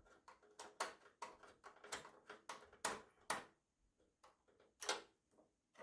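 Irregular sharp clicks and taps of an Allen wrench working the screws that hold a graphics card in a PC case. The clicks are dense at first and thin out after about three and a half seconds.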